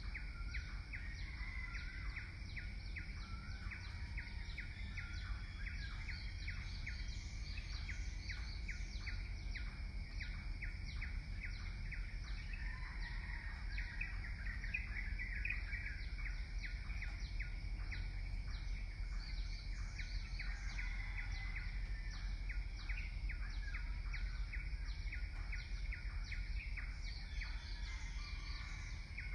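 Small birds chirping constantly, in many short rapid calls, over a low steady rumble.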